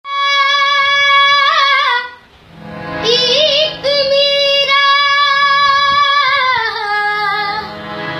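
A child singing solo in a high voice, holding long notes with wavering ornaments. There is a short breath pause about two seconds in, and a held note slides down near the end.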